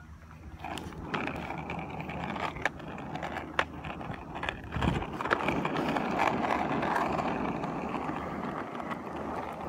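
Skateboard wheels rolling on an asphalt path: a steady rolling rumble that builds about half a second in, with several sharp clacks from bumps in the pavement.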